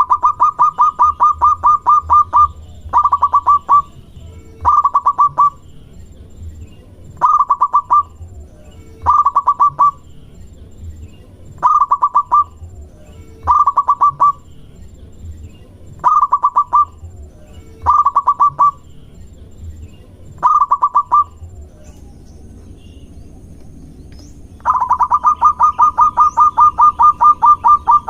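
Zebra dove (perkutut) calling in bursts of rapid staccato coo notes: a long run at the start, about nine short bursts roughly two seconds apart, then another long run near the end.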